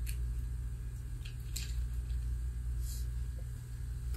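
A pause in speech filled with steady low background rumble and a few faint, brief rustles.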